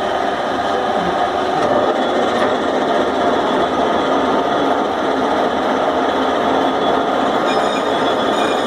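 Lathe running steadily under power: an even, dense mechanical noise with several steady whining tones.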